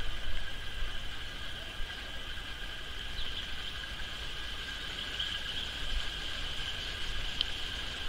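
Outdoor ambience: a steady high-pitched drone with a few brief faint chirps, over a low rumble.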